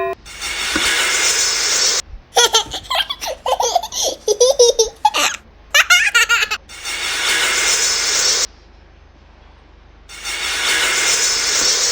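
A baby laughing in a string of short giggles, between stretches of steady hiss-like noise lasting about two seconds each.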